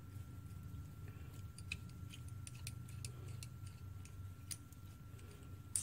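Scattered light clicks and ticks as a small brass carburetor fuel-pickup fitting is turned and handled in the fingers, with a sharper click near the end, over a steady low hum.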